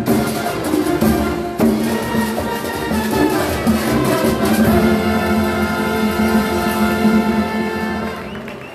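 Live big band playing Latin music with brass and percussion. The drumming stops about halfway through, and the band holds a long final chord that fades out near the end.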